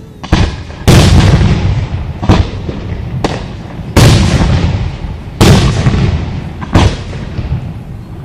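Fireworks exploding: a string of about eight sharp booms, the loudest about a second in and again around four and five and a half seconds, each trailing off over a second or so.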